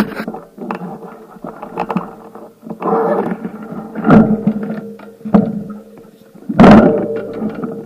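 Bicycle rattling and jolting over a rough surface: irregular knocks and clicks, with several heavier bumps, over a faint steady hum.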